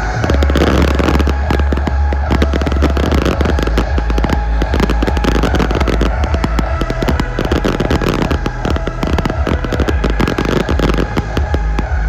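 Closing barrage of a fireworks show: a dense, rapid run of firework bangs and crackles, with a steady low rumble underneath.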